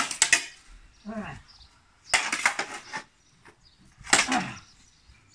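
Medieval weapon sparring: billhook against sword and shield, clattering in three quick flurries of blows, a second or two apart. A short voice sound, falling in pitch, comes twice between the flurries.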